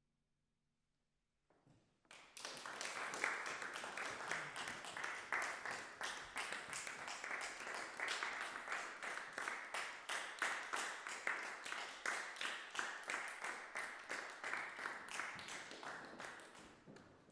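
A moment of near silence as the last piano chord dies away, then an audience applauding, starting about two seconds in and tapering off near the end.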